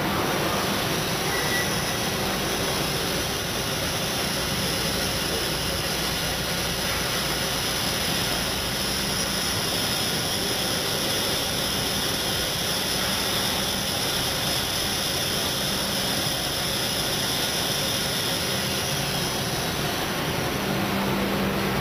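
Steady running noise of an ERSA Versaflow selective soldering machine in operation, an even rush of fans and air handling with faint high steady tones over it.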